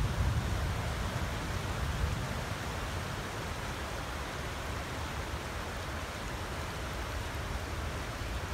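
Floodwater rushing fast across a road and through a fence line: a steady, even hiss of moving water, with a heavier low rumble in the first couple of seconds that then eases.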